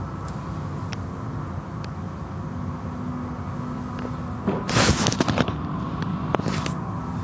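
Automatic car wash machinery running with a steady low rumble. About four and a half seconds in comes a loud burst of slapping and splashing as the brushes and spray hit the car, and a shorter burst follows near the end.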